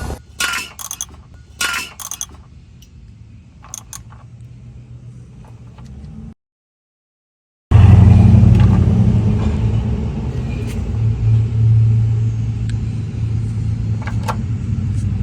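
A few scattered clicks and clatters, then, after a short gap, the GMC Sierra Denali's 6.6-litre turbo-diesel V8 idling loudly and evenly, settling a little lower over a few seconds.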